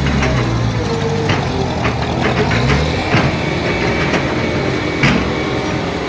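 Heavy earthmoving machinery running, with a single-drum road roller in front and a bulldozer behind it: a steady engine noise with sharp metallic clanks every second or so.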